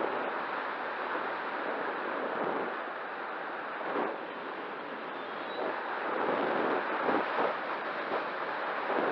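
Wind rushing and buffeting on the microphone, a steady noise that swells and eases in irregular gusts.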